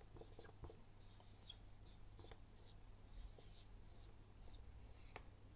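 Marker pen writing on a whiteboard: faint, scattered short strokes and taps.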